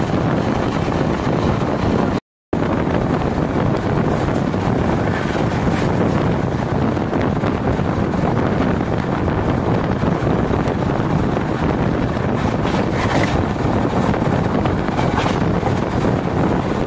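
A moving express train's running noise, its wheels rumbling on the rails, mixed with heavy wind rushing over the microphone held out of the side of the coach. The sound is steady, apart from cutting out for an instant about two seconds in.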